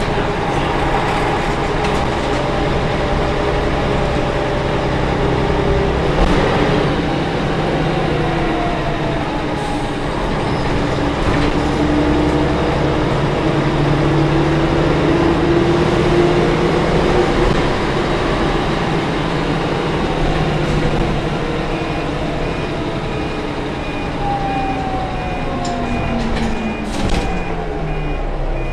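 Mercedes-Benz OM 407 h naturally aspirated 11.4-litre inline-six diesel bus engine, driving through a ZF 4HP500 four-speed automatic and heard from inside the bus. Its note climbs through the middle, then falls away near the end. A repeated high beeping starts near the end.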